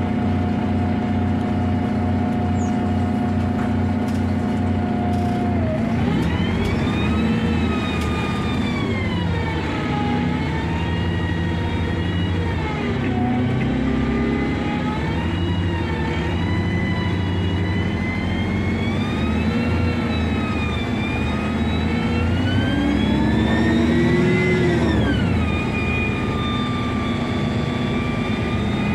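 City bus engine and drivetrain. It runs at a steady idle at first; about six seconds in, the bus pulls away, and its pitch rises and falls several times as it accelerates and changes gear. Near the end the pitch drops and holds steady.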